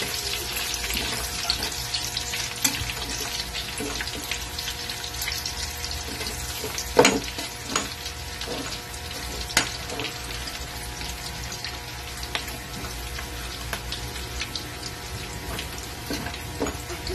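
Chopped onion sizzling in hot oil in a metal wok, a steady frying hiss. A metal spatula stirs and scrapes against the pan, with a sharp knock about seven seconds in and another a few seconds later.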